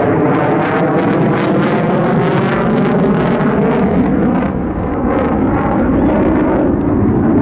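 F-35A's single Pratt & Whitney F135 jet engine running in afterburner during a pass: a loud, steady rumble with crackling all through.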